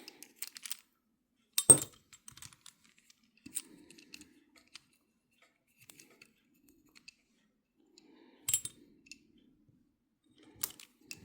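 Light clicks and clinks of the small metal parts of an Abumatic 150 reel being handled and fitted during reassembly. There is a sharper click about two seconds in and another about eight and a half seconds in.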